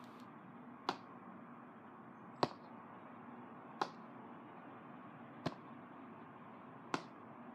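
Footsteps of heeled boots on a hard floor: five sharp clicks about a second and a half apart, over a steady faint hiss.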